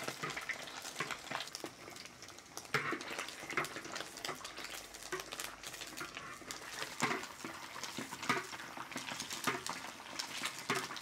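Large pork meatballs deep-frying in hot oil, sizzling and crackling steadily as they are fried just long enough to set their shape, with a few sharper clinks and scrapes of a utensil turning them.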